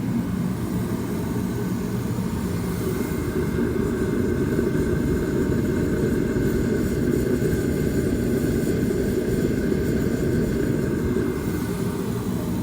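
Sears Craftsman 30,000 BTU kerosene torpedo heater running just after start-up: its fan and burner make a loud, steady rushing noise with a faint whine on top.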